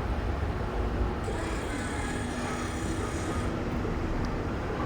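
Steady low rumble of background traffic noise, with a faint high hiss for a couple of seconds partway through.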